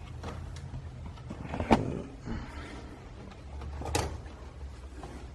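Two sharp clicks or knocks, about two seconds apart, with fainter handling noise, over a low steady hum: hands and tools working loose the stock radio and trim in a car's dashboard.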